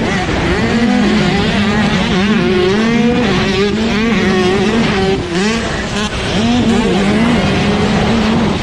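125 cc two-stroke motocross bikes racing, their engines revving up and down repeatedly as the riders work the throttle.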